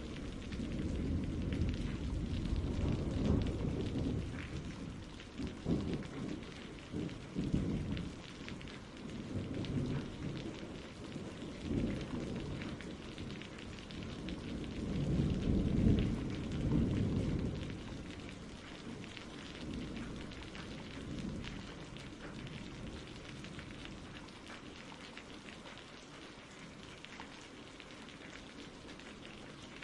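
Steady rain with two long rolls of low thunder: one in the first several seconds, and a louder one around the middle. The thunder then dies away, leaving only the rain.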